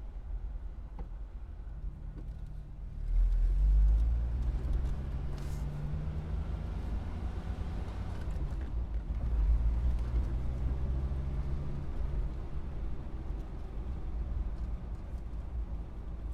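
A car's engine running with a low rumble. It swells about three seconds in as the car moves off, its note rising and then easing back, with another swell in the middle before it settles to a steady run.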